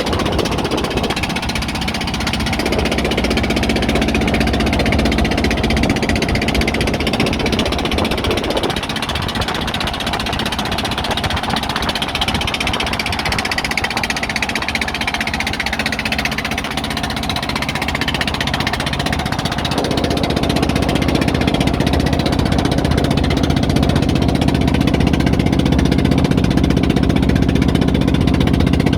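An engine running steadily with a knocking, throbbing note. About twenty seconds in it gets a little louder and stronger.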